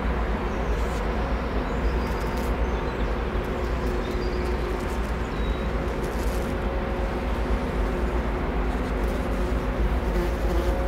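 Steady low rumble with a constant hum from the machinery of the 400-metre container ship HMM Algeciras as it passes close by.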